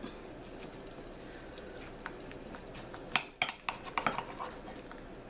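Kitchen knife sawing through a sandwich on a plate, the blade clicking and knocking against the plate, in a quick run of sharp clicks about three seconds in.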